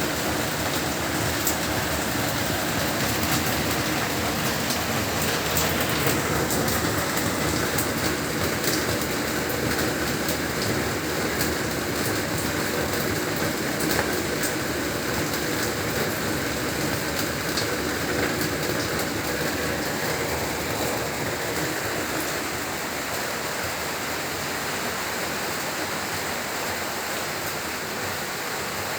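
Heavy rain falling steadily: an even hiss of rain with many separate sharp drop hits through it, easing slightly near the end.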